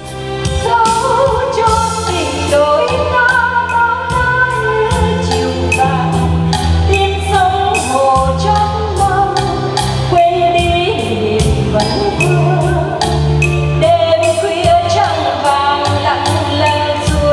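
A woman singing into a handheld microphone over amplified musical accompaniment with a steady beat and bass line.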